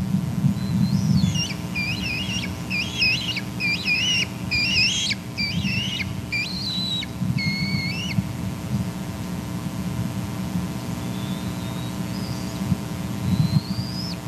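Young bald eagle begging for food with a run of about ten quick, high call notes that bend in pitch, followed near the end by two faint rising whistles. A low steady rumble runs underneath.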